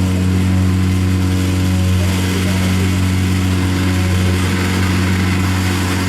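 Live noise music: a loud, steady low drone with a few held tones above it, under a dense wash of hiss and static.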